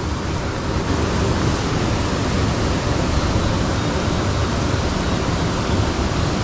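Steady rush of flowing water, an even noise with no distinct strokes.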